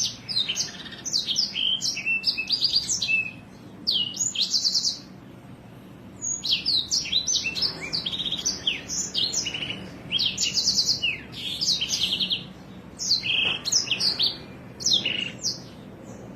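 A songbird singing loud, fast, varied phrases of sharp high notes and rapid rolling trills, in bursts of a second or two with short pauses between, the kind of song used as a masteran tutor recording for cage birds.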